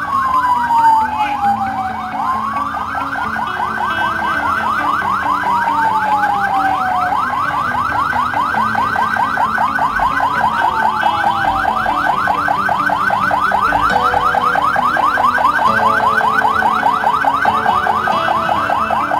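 Emergency vehicle sirens sounding together: a rapid, repeating yelp runs under a slower wail that falls and rises every two to three seconds.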